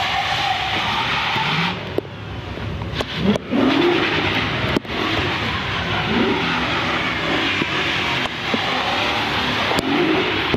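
The swapped-in BMW 4.0-litre V8 of a Mazda RX-8 is revved hard, its pitch rising and falling repeatedly with brief drops as the driver lifts off. A steady hiss of tyres on the wet pavement runs underneath.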